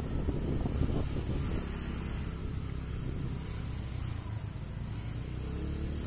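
Honda Beat automatic scooter's small single-cylinder engine running at steady riding speed, heard from the seat under a low rumble of wind on the microphone.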